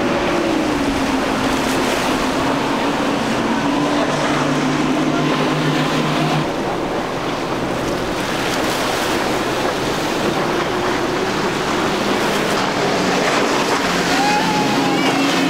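Large outboard engines on center-console speedboats running at high speed, a steady engine drone over the rush of wake, spray and choppy water, with wind on the microphone. The sound changes about six seconds in as a different boat, an MTI with quad Mercury Racing 400 hp outboards, takes over.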